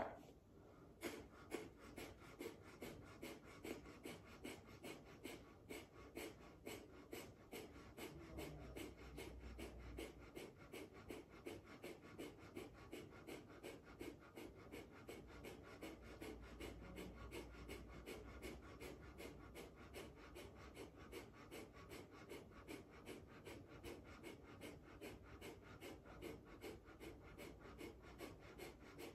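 A woman's breath of fire: quick, forceful exhalations through the nose, each driven by pulling the belly in, repeated in a fast, even rhythm of about two to three breaths a second. It is faint.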